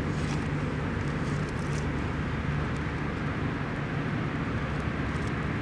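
Steady low background rumble with a constant hum, and a few faint small clicks of plastic servo-lead connectors being handled and plugged into the stabilizer.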